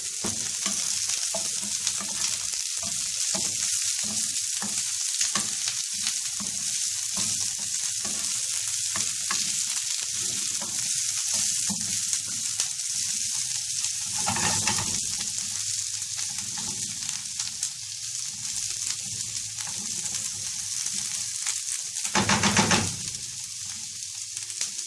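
Sliced bell peppers and onions frying in oil in a pan with a steady sizzle, stirred now and then. There are two louder moments, one a little past halfway and one near the end.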